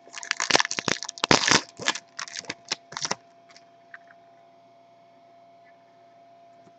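Crinkling and crackling of a trading-card pack wrapper being torn open and handled, a quick flurry of crackles for about three seconds that then stops.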